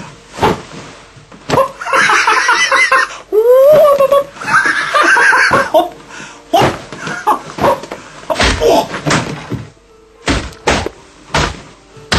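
Bursts of laughter and high voices, loudest about two and four seconds in, over a run of sharp knocks and thumps.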